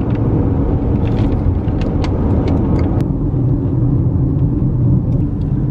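Steady rumble of a car driving along a road, heard from inside the cabin.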